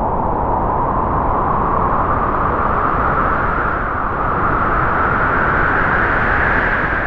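A strong gust of wind blowing, a rushing noise with a hollow whistling tone that slowly rises in pitch, then begins to die away near the end.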